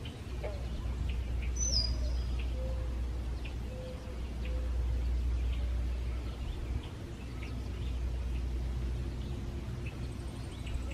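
Wild birds chirping and calling: many short scattered chirps, with one sharp, high whistled note about two seconds in, over a steady low rumble.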